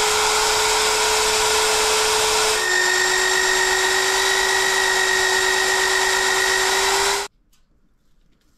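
Bluerock magnetic drill running, cutting a 3/4-inch hole through steel plate with an annular cutter: a loud, steady motor whine. About three seconds in, its pitch drops slightly and a higher whine joins it. The motor cuts off suddenly about seven seconds in.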